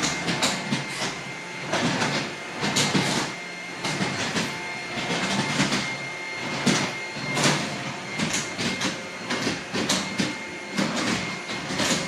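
Bosch Athlet cordless stick vacuum running on its lower setting with a steady high whine, its floor-head wheels clattering over the tiles in irregular clicks and rattles that are louder than the motor.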